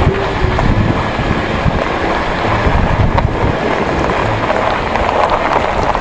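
Vehicle driving slowly along a rough unpaved forest road: steady engine and tyre rumble, with wind noise on the microphone.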